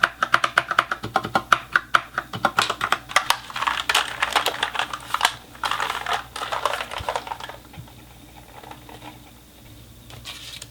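Typing on an Ajazz K870T mechanical keyboard with Huano brown tactile switches: quick, even keystrokes, growing into a denser clatter about four seconds in, then dying away to a few faint taps over the last three seconds.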